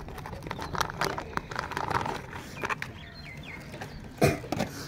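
Clear plastic packaging bag crinkling and rustling, with the clicks of a small plastic toy truck being handled and pulled out of it; near the end a short, loud vocal sound from a person.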